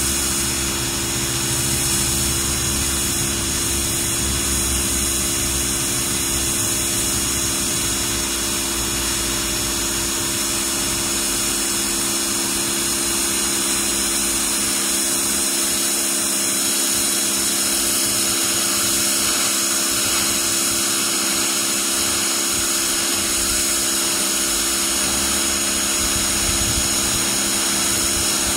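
Electric pressure washer running steadily, with the motor and pump humming under the hiss of the high-pressure jet striking concrete.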